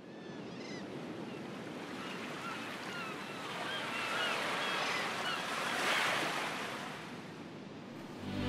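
A rushing wash like ocean surf fades in and swells to a peak about six seconds in, with short chirping bird calls over it. Music comes in right at the end.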